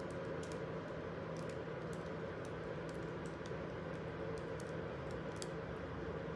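A steady low hum with a scattering of light, irregular clicks over it.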